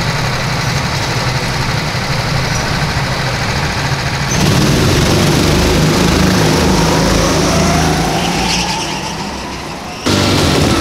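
A grid of petrol go-kart engines idling together. About four seconds in they get louder as the karts rev and pull away from the start, with one engine's pitch rising before the sound fades off.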